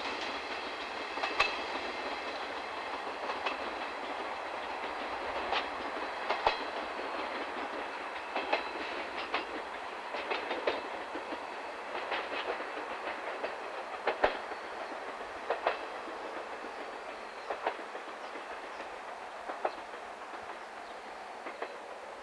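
12-series passenger coaches of a DD51-hauled train rolling away over jointed track, wheels clacking over the rail joints every second or two over a steady rolling rumble, fading as the train recedes.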